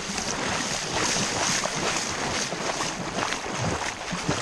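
Sea water washing at the shoreline, a steady rushing noise with wind buffeting the microphone.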